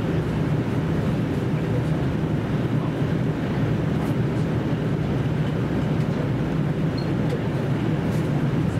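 Running sound inside a JR Central KiHa 75 diesel railcar under way: a steady low diesel drone mixed with wheel-on-rail noise.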